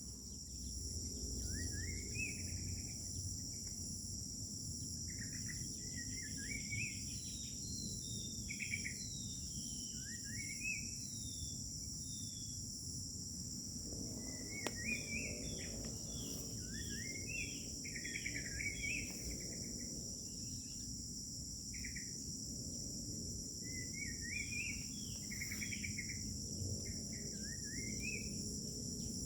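Crickets droning steadily in a high pitch, with a bird singing short rising and falling whistled phrases again and again, over a low background rumble.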